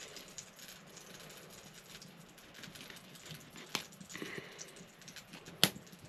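Scattered light clicks and rattles, with a sharper click a little past halfway and a louder, sharp click near the end.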